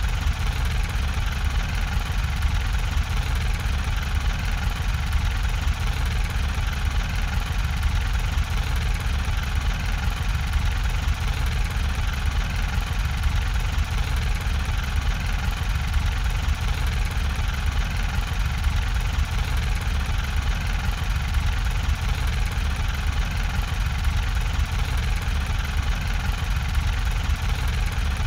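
Steady mechanical rumble of a machine running continuously, heavy in the low end and unchanging throughout.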